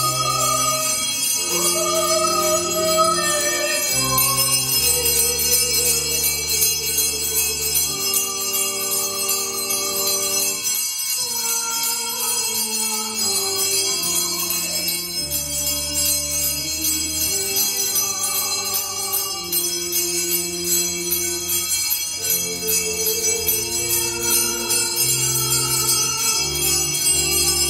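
Slow church music: held chords with a bass line, changing every second or two, as in a hymn or processional.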